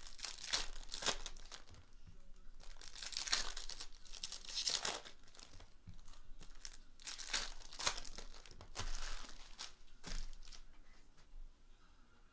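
Foil trading-card packs being torn open and their wrappers crinkling, in a string of rustling bursts that die down near the end.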